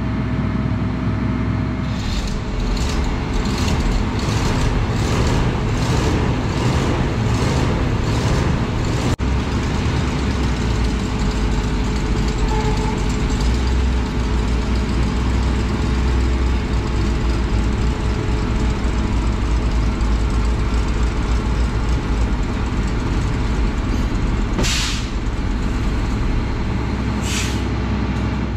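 Old grain truck's engine running as the truck is pulled forward, with a regular clacking about twice a second during the first several seconds. Near the end there are two short hisses of air, one longer and one brief.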